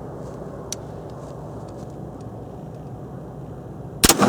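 Wind rumbling steadily on the microphone, then near the end a single loud shot as a Traditions .50 caliber percussion muzzleloader fires a black-powder load, touched off by a hair trigger.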